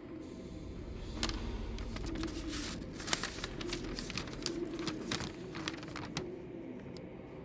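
Crumpled sheet of paper being unfolded by hand, a run of sharp, irregular crinkles that go on for several seconds.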